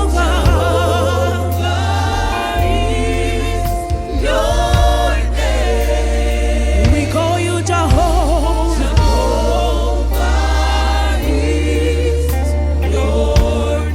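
Gospel choir singing a worship song over instrumental backing. Long held notes with vibrato sit over a steady, heavy bass.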